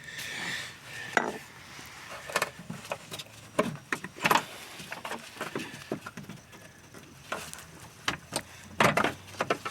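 Scattered sharp clicks and light plastic-and-metal clatter of hands working the fuel-line quick-connect clips on a Jeep Cherokee fuel pump, pressing them in and sliding them off.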